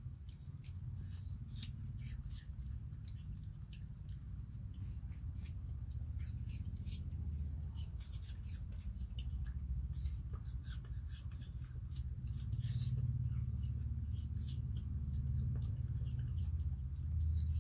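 Macaques chewing crisp fruit slices: irregular small crunches and clicks, over a steady low hum.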